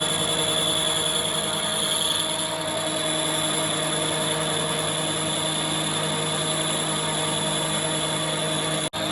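A workshop machine running steadily, a constant motor whine over even mechanical noise, cutting out for an instant near the end.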